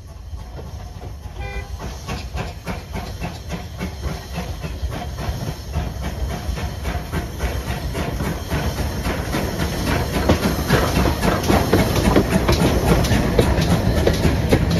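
GWR Grange class 4-6-0 steam locomotive No. 6880 'Betton Grange' working a train toward and past the listener: rhythmic exhaust beats with steam hiss and wheels on the rails, growing steadily louder as it draws near. A short whistle note sounds about a second and a half in.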